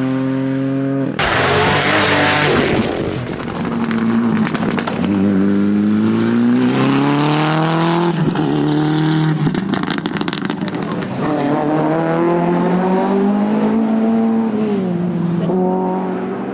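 Rally car engine pulling hard through the gears, its pitch climbing in steps with each upshift and dropping back when the driver lifts or brakes, about twice in the second half. A burst of broad hissing noise about a second in cuts across the engine.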